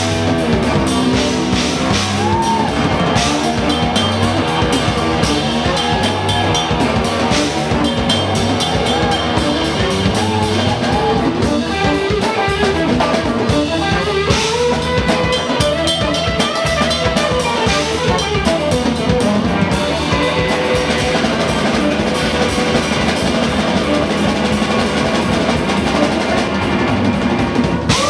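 Live instrumental band playing at full volume: a busy drum kit with electric guitar, saxophone and keyboard, and a lead line that slides up and down in pitch.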